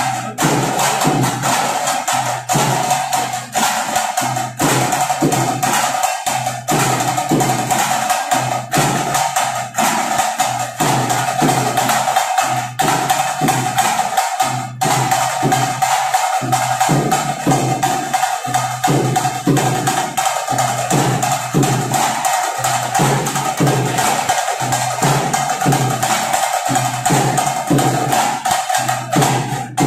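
Loud festival percussion music: drums beating a fast, even rhythm, with one steady high note held throughout.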